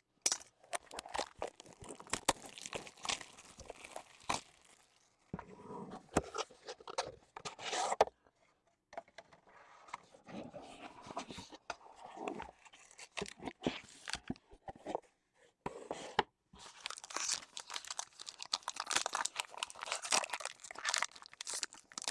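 Cardboard trading card boxes being handled on a table, with scraping, rubbing and tapping in short bursts. In the last several seconds comes a denser run of crinkling as a foil card pack is pulled open.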